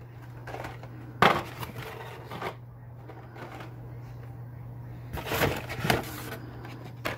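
Blister-carded Hot Wheels cars being handled and pulled out of a cardboard case: a sharp knock about a second in and a short clatter of plastic and card, then a rustling scrape about five seconds in and a click near the end, over a steady low hum.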